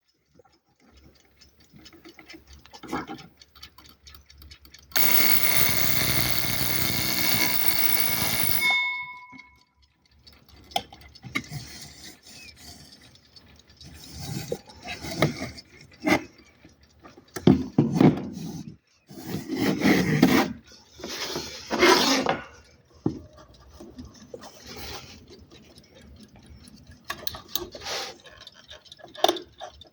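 An alarm clock's alarm buzzes steadily for about four seconds, starting about five seconds in, then cuts off abruptly. After it come scattered clicks, knocks and rubbing sounds.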